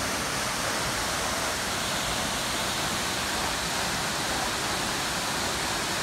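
Steady, even rush of a large waterfall's falling water.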